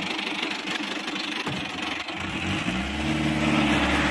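Ace DI-450 tractor's 45 HP diesel engine running, then revving up about two seconds in and settling at a higher, louder steady speed.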